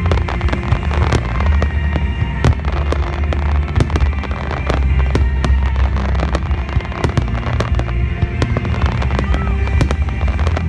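A fireworks display: shells bursting with deep booms and dense crackling pops throughout, with music playing under it.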